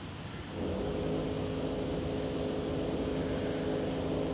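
A motor running steadily: a droning hum of several steady pitches that comes in about half a second in.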